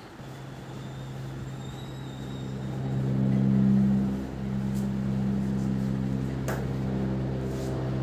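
A steady low motor-like hum with a few held pitches, swelling about three to four seconds in and cutting off suddenly at the end, with a few faint light clicks.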